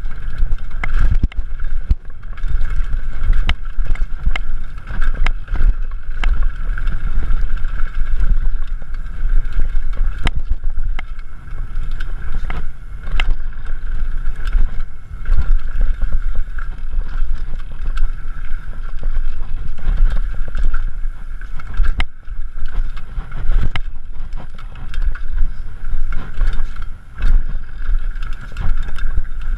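Downhill mountain bike descending a dirt trail at speed: wind buffeting the microphone with a heavy, gusty rumble, over tyre noise and frequent rattles and knocks from the bike hitting bumps.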